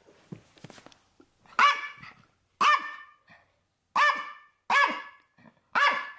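Small dog barking: five sharp, high-pitched barks about a second apart, after a moment of faint scuffling.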